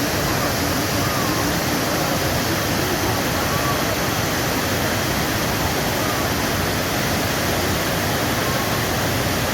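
Abbi Falls waterfall: a steady, dense rush of falling water, with faint voices under it.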